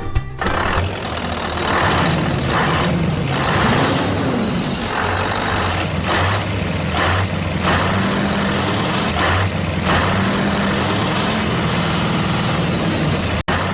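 Truck engine running, its hum stepping up and down in pitch, with repeated short bursts of hiss over it.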